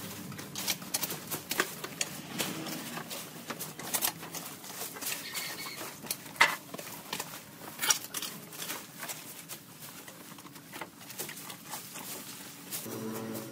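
Irregular sharp snaps and crackles with rustling from overgrown weeds and brush being cleared, loudest about six and a half seconds in.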